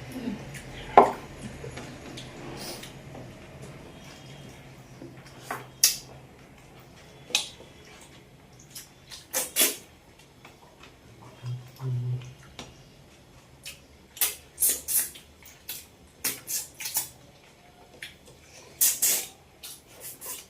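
Dishes and serving utensils clinking and clattering at a meal: many short, sharp knocks and clinks at irregular intervals, with quiet stretches between them.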